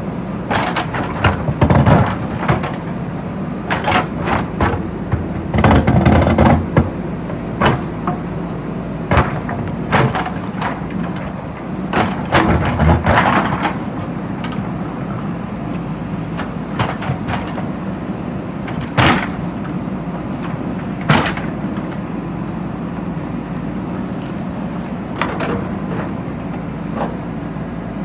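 JCB backhoe loader's diesel engine running steadily, with repeated clanks, knocks and scraping as the bucket breaks up and digs out bricks and stones. The heaviest knocks come in the first half.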